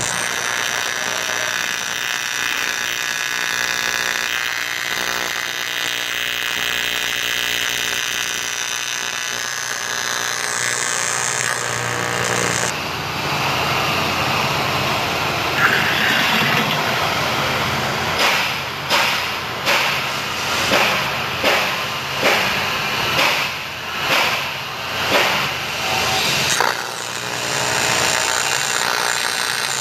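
AC TIG welding arc on 6061 aluminium from a Miller Syncrowave 250, buzzing steadily. In the second half the buzz swells and dips in a regular rhythm, a little over once a second.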